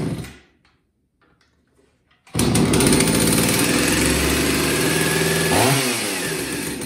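Jonsered chainsaw's two-stroke engine: it runs and cuts out just after the start, is silent for nearly two seconds, then fires up again and runs fast. About a second before the end its revs drop.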